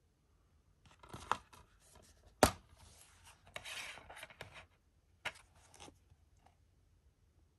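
A plastic DVD case being handled and opened: hands rub and scrape on the case, with one sharp click about two and a half seconds in as the case snaps open, then more rubbing and a few lighter clicks.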